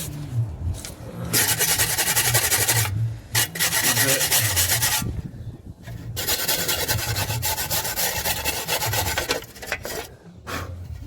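Wire brush scrubbing hard against the metal bore of a car's front wheel hub housing in two long bouts of rapid strokes with a short pause between, clearing caked rust and brake dust.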